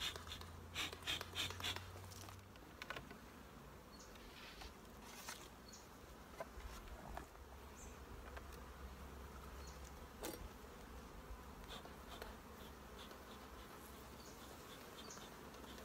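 Honeybees buzzing faintly around an opened hive, with a few sharp knocks and clicks from handling the hive gear in the first two seconds.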